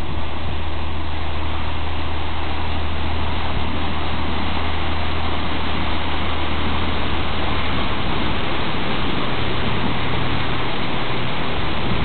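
Small fishing boat's engine running as it motors past, a steady low drone that changes pitch about eight seconds in, under the rushing of its churned wake and bow wave, which grows as the boat comes close.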